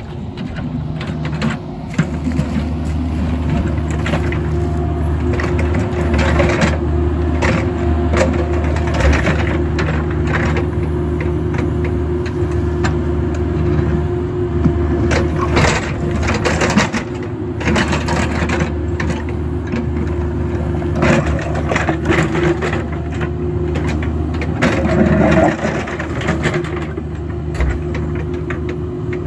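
Caterpillar mini excavator's diesel engine running steadily under load while its bucket scrapes, cracks and crunches through broken concrete slab and dirt, with many short irregular impacts.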